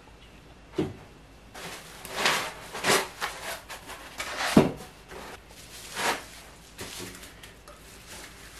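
Packing material being handled and pulled apart: rustling and scraping of foam, cardboard and bubble wrap, with several knocks. The loudest is a thump about halfway through.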